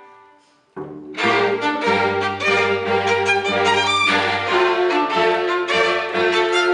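Live bowed-string music. A held note dies away, there is a brief pause, and then, under a second in, the music starts again: a violin plays quick notes over long held notes from a lower bowed instrument.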